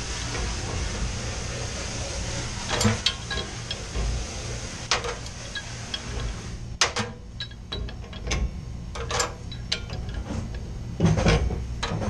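Pipe wrench clanking and knocking against a Y-strainer's cap and copper pipe fittings as the cap is worked loose, a string of sharp metallic knocks over a steady hum. The hum drops off about halfway through.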